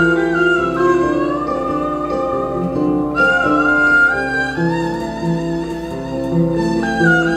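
Instrumental ensemble music: a haegeum (Korean two-string fiddle) plays a bowed melody that slides between held notes, over a repeating pattern of plucked kora notes and electric bass.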